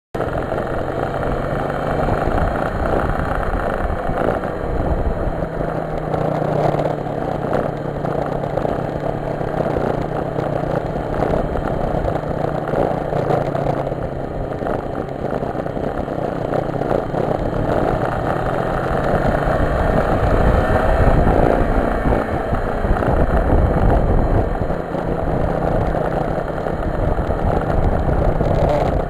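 A vehicle engine running steadily, its level rising and falling a little.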